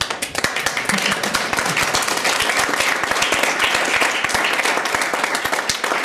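Audience applauding, starting all at once and going on steadily.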